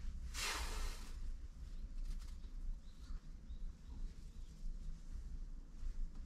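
Rustle of a padded jacket sleeve and a hand stroking a cat's head, loudest in one brief burst about half a second in, over a steady low rumble.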